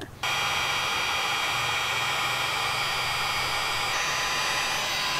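Heat gun switched on about a quarter second in and then blowing steadily, a loud hiss with a faint fan whine, aimed at blue heat-shrink crimp connectors on wires.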